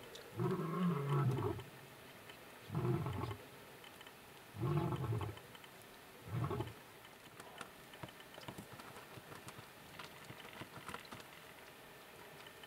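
A male lion's roaring bout tailing off. One long, deep call comes first, then three shorter grunts about two seconds apart, and after that only faint scattered ticks.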